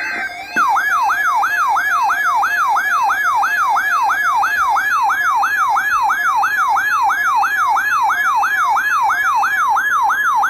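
Emergency alert attention signal: a loud electronic tone sweeps rapidly up and down, about three times a second, like a yelping siren. It starts about half a second in, just after a high digital data tone of the alert header cuts off.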